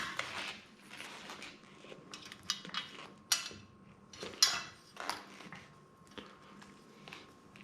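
Small metal parts and tools clinking and clicking as they are handled on a workbench, in a scattered run of sharp clacks with a few louder ones in the middle.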